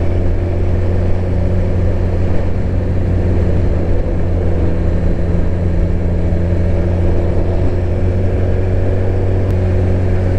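Suzuki GSX-R1000 K7's inline-four engine running at a steady speed while the motorcycle cruises, with wind noise on the helmet microphone.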